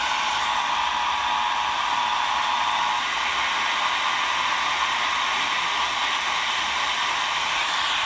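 Loudspeaker of an Eton portable radio putting out a steady, loud hiss of static during an Emergency Alert System test broadcast, with a faint steady tone under it that stops about three seconds in.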